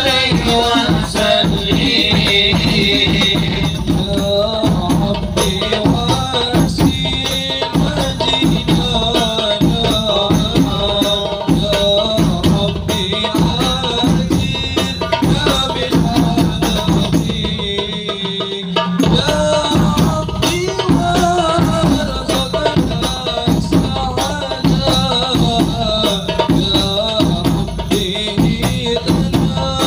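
A group of male voices sings an Islamic devotional chant (sholawat) over a PA, with drum percussion and a jingling rattle, and a steady high tone sits underneath. The sound thins briefly about 18 seconds in, then the singing and drumming carry on.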